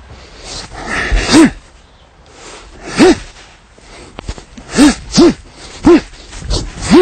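A man's short, forceful voiced exhalations, sharp "hah" shouts, about six in a row and closer together toward the end, each one sent out with a strike of a Bagua Phoenix boxing form.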